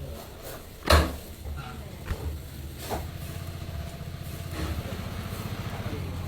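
A sharp knock about a second in. From about three seconds a small engine starts running with a fast, even pulse.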